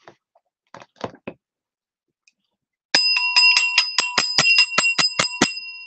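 Small metal bell rung rapidly, about five strikes a second for some two and a half seconds, then left ringing out as it fades. A few soft taps come about a second in.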